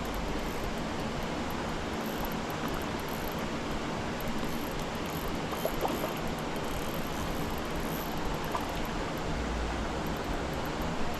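Steady rush of flowing creek water running in a strong current.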